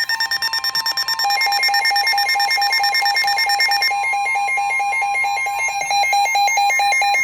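Emergency Alert System alert tones: a loud steady electronic tone with rapid, evenly pulsed beeps alternating between pitches over it. The beep pattern changes about a second in and again about four seconds in, then the tones cut off abruptly.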